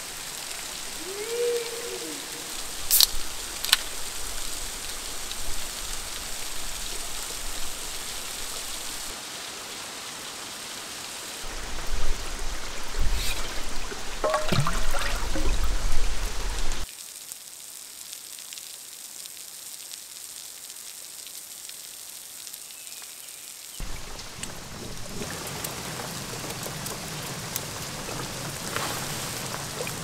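Rain falling steadily, with water noise that shifts between shots. About twelve seconds in it grows louder with splashing as a pan is dipped into a small stream, then drops to a quieter patter for several seconds.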